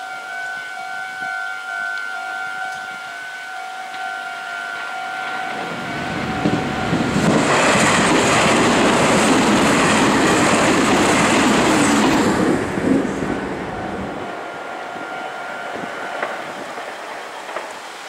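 Japanese level-crossing warning bell ringing a steady repeating two-tone chime, then a Meitetsu electric train passing through the crossing at speed, loudest from about 6 to 14 seconds in and drowning the bell. The bell is heard faintly again after the train and stops about 16 seconds in as the crossing clears.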